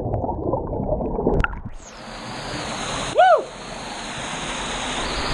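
Steady rush of water at a waterfall and plunge pool, muffled for the first two seconds and then clear. A person shouts "Woo!" about three seconds in.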